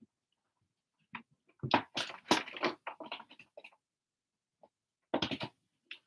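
A run of knocks and rustling bumps, the sound of someone moving about and handling things close to the microphone. The knocks come in a cluster about a second in and a shorter one near the end.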